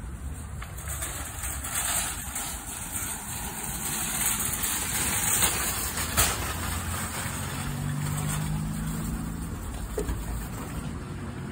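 Parking-lot traffic noise, vehicle engines running, with an engine's low hum standing out for a couple of seconds about three-quarters of the way in.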